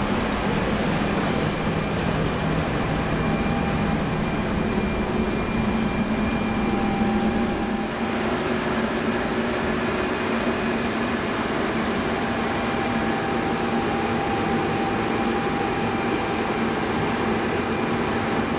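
John Deere T670i combine harvester running steadily, heard from inside the cab as an even mechanical hum and rush with a few faint steady tones.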